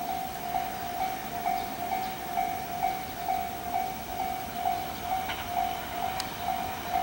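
Japanese railway level-crossing warning bell ringing steadily, about two strikes a second, as a Tobu 20400 series electric train approaches.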